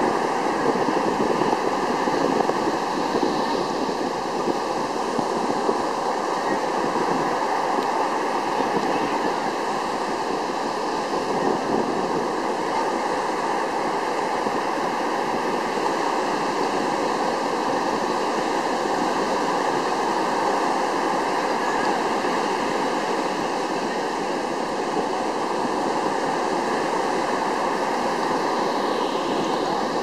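Sea waves breaking and foaming right at the shoreline: a continuous rushing wash of surf that stays at an even level, with no single crash standing out.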